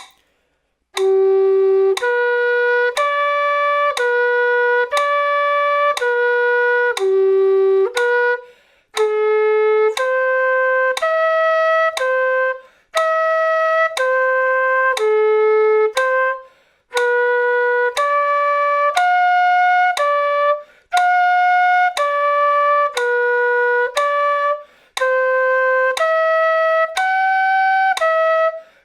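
Quena (Andean notched flute) playing slow arpeggio phrases, one note about every second in time with a metronome's click, with short breaks for breath between phrases.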